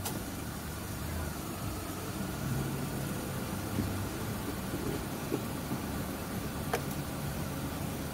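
Hyundai Eon's three-cylinder petrol engine idling steadily, heard from inside the cabin with the air conditioning just switched on and its blower running. Two faint clicks, one at the start and one near the end.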